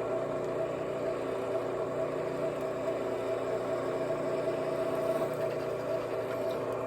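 Electric drill motor running steadily while boring a small hole through steel conduit, a constant hum.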